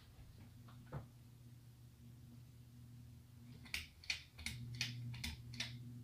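Ceiling fan motor humming steadily and faintly. About four seconds in comes a quick run of about six sharp clicks, a little under half a second apart, and the hum grows slightly stronger after them.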